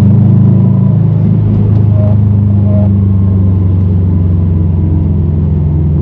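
Subaru WRX STI's turbocharged flat-four engine and road noise droning steadily inside the cabin at freeway cruising speed.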